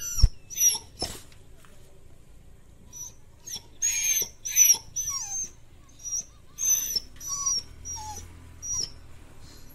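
Labrador whining in a series of short high-pitched cries, complaining because it wants to be let out. A single knock sounds just at the start.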